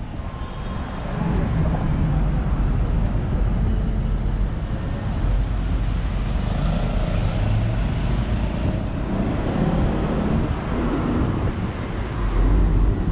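Steady road traffic noise from cars and trucks on a busy multi-lane city road, building about a second in and then holding.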